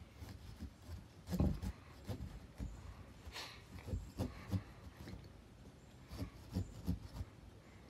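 Small pumpkin-carving knife sawing and pressing into a pumpkin's rind, with quiet, irregular knocks and scrapes as the pumpkin moves on a wooden board.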